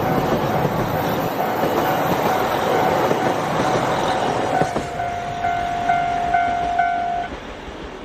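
A JR Hokkaido KiHa 261 series diesel express runs past and away, its wheels clattering on the rails as the noise eases off. About four and a half seconds in, a high warning tone swells in several pulses and then stops about a second before the end.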